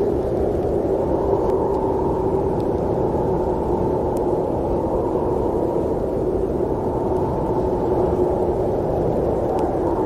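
Snowstorm wind blowing steadily: an even, low rush of noise with a faint held tone running through it.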